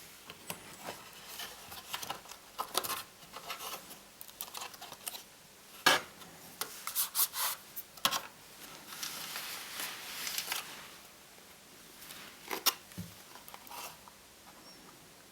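Laptop parts being handled while the motherboard is worked out of the chassis: scattered sharp clicks and knocks of plastic and metal, with a stretch of scraping and rubbing in the middle.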